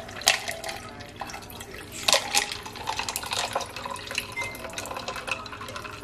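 Iced coffee pouring and splashing from a stainless-steel cocktail shaker into a metal tumbler, with ice clinking against the shaker and a scoop held at its mouth; two sharper clinks about a third of a second and two seconds in.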